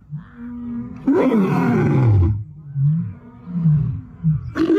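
Lion roaring: a soft low moan, then one long full roar falling in pitch, followed by a run of short grunts, with another roar starting near the end.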